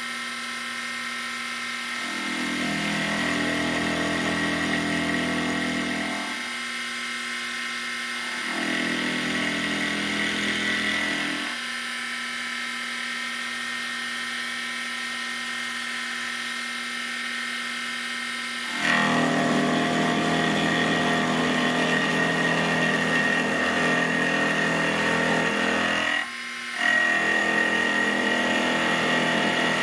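WEN 33013 benchtop mini mill running with a steady high whine, its end mill cutting aluminum in passes: two short cuts early on, then louder continuous cutting from about two-thirds of the way in, broken by a brief pause near the end.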